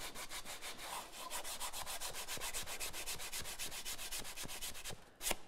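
Folded sandpaper rubbed quickly back and forth inside a wooden cam-clamp jaw, easing its sharp edges and corners. The even strokes stop about five seconds in, followed by one short sharp sound near the end.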